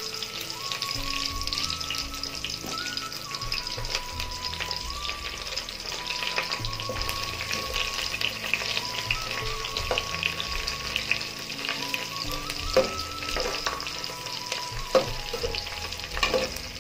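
Sliced onions, mustard seeds and fresh curry leaves sizzling and crackling in hot oil in a metal pot. A steel ladle stirs them, with a few sharp clinks against the pot near the end.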